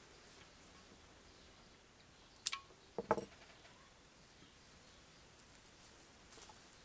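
A sharp click, then about half a second later a short rattle of two or three knocks, over a faint quiet background.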